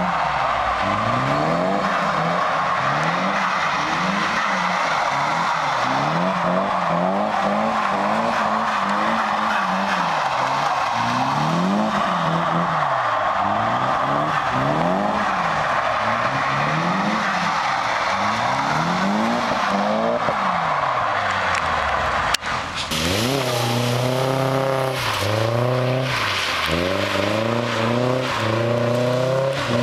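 Nissan 240SX engine revved up and down over and over, roughly every second or two, while the car slides sideways in a drift on wet pavement, with a steady hiss of tyres skidding through water. After a sudden cut about three-quarters of the way through, a second 240SX's engine revs in quicker, higher rises.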